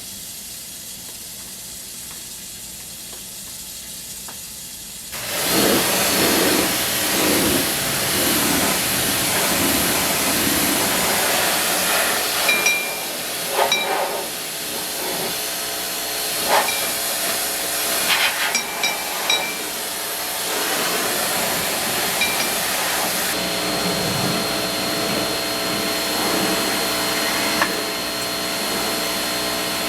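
Pressure washer spraying: a loud, steady hiss that starts suddenly about five seconds in, with a steady whine under it and a few short knocks partway through.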